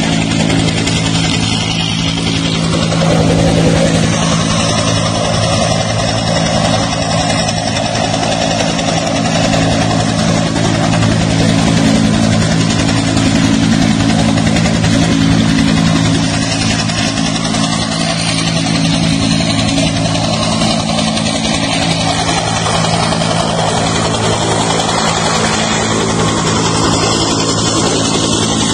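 Military helicopter engine and rotor running, a loud steady drone that holds unchanged throughout.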